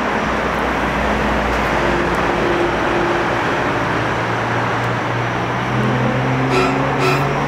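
Steady road traffic noise, with a vehicle engine's hum rising in pitch through the second half.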